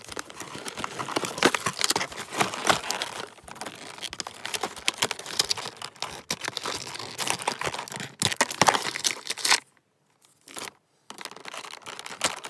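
Crinkling, rustling and tearing of toy packaging as the playset is handled and pulled out of its box: a dense run of small crackles that stops about nine and a half seconds in and comes back more faintly just before the end.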